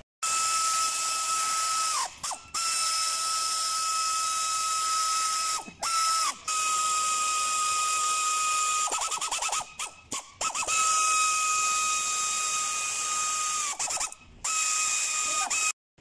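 Pneumatic ratchet running on bolts on an engine's valve cover: a steady high whine with air hiss, in about five runs of a few seconds each, the pitch sagging each time it stops. About nine seconds in there is a quick patch of clicking.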